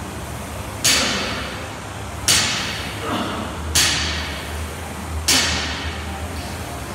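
Four sharp thuds, one about every one and a half seconds, each followed by a short echo in the gym hall, over a steady low hum.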